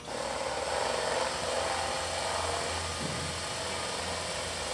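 Power drill starting up and running steadily as it bores a hole through aluminium aircraft sheet metal.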